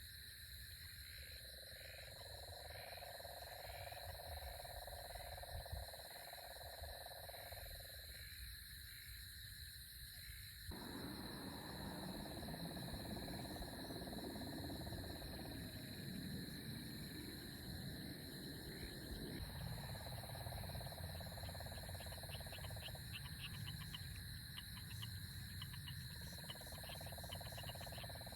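Night chorus of insects and frogs: steady high trills throughout, with a lower drawn-out call coming in long spells of several seconds each. About a third of the way in, a low rumble of distant thunder sets in, lasts several seconds and then eases.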